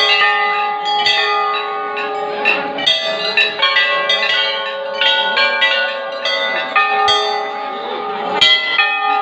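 Many hanging brass temple bells of different sizes being struck one after another at irregular intervals, roughly once or twice a second, their ringing tones at several pitches sounding on over each other.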